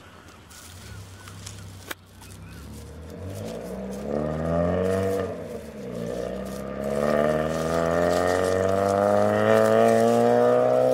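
A motor vehicle's engine accelerating as it comes closer, its pitch rising, dropping at a gear change about halfway through, then climbing again and growing louder.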